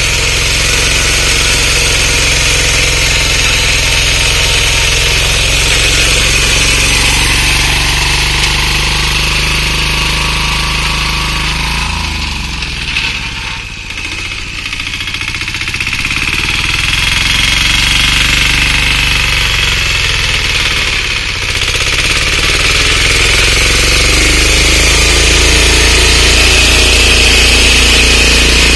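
Engine of a walk-behind power tiller running steadily under load while its rotary tines churn soil. Its level and pitch sag and recover around the middle.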